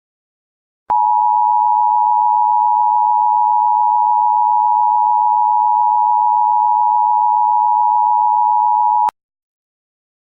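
Emergency Alert System two-tone attention signal: a loud, steady dual tone that starts about a second in, holds for about eight seconds and cuts off sharply.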